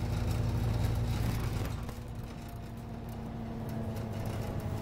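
Scania OmniCity double-decker bus heard from inside the cabin while under way: a steady low drone of engine and road noise. It eases off briefly about two seconds in, then builds again.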